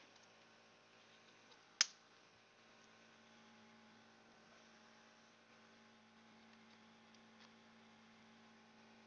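One sharp plastic click about two seconds in, from a small flip lid on an SMD component storage box, then a couple of faint ticks of hands on the box. Under it a low steady hum sets in about three seconds in.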